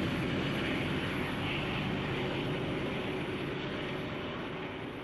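Steady rushing, low rumble that slowly fades away.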